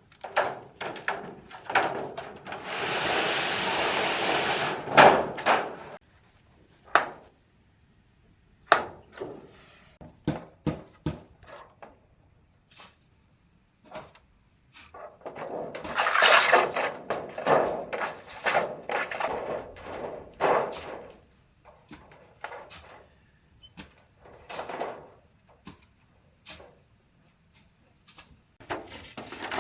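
Irregular knocks and thuds, with two longer stretches of rustling or scraping noise lasting a few seconds each, one near the start and one about halfway through.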